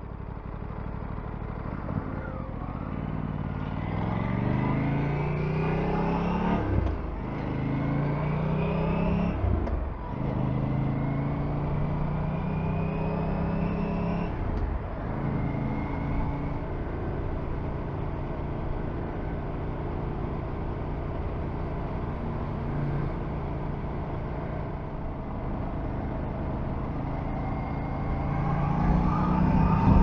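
Aprilia RS 457's parallel-twin engine accelerating through the gears: its pitch climbs and drops back at upshifts about 7, 10 and 14 seconds in, then holds steady at cruising speed, rising again near the end, with wind noise over it.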